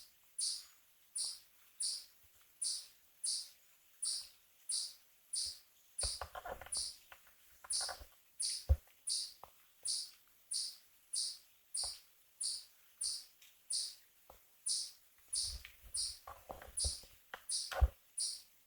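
A cricket chirping in a steady, even rhythm, about one and a half high chirps a second. There are scattered clicks and rustles from camera handling, heaviest about six seconds in and again near the end, with a sharp knock among them.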